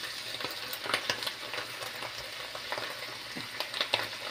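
Chopped pork sizzling as it fries in a clay cazuela, a steady hiss with frequent crackling pops; the meat's juices have cooked off and it is frying in its own fat.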